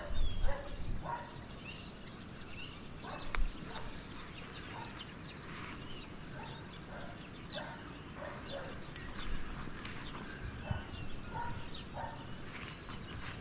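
Outdoor yard ambience: small birds chirping on and off, with repeated footsteps crunching on gravel and wood chips. Two louder low bumps come near the start and about three and a half seconds in.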